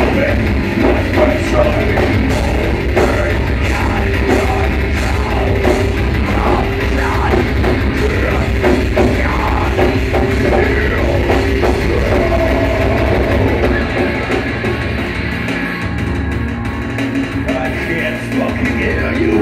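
Live rock band playing loud, with electric guitars, bass and a drum kit. The heavy low end drops back about fourteen seconds in.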